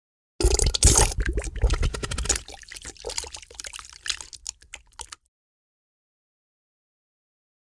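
Wet, sputtering fart sound effect: a dense run of rapid wet crackles starting about half a second in, trailing off into scattered pops and stopping about five seconds in.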